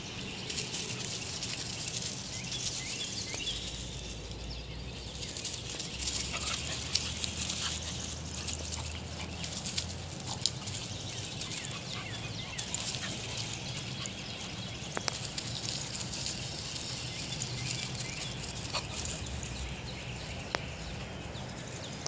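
Small dogs play-fighting on grass and dry leaves: scattered scuffs and rustles with occasional short dog noises.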